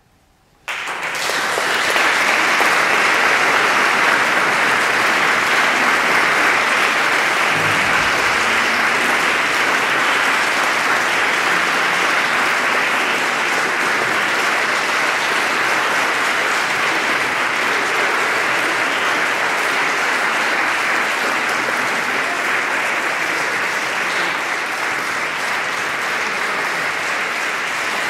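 Audience applauding. After a brief hush, the applause breaks out suddenly within the first second, then holds steady.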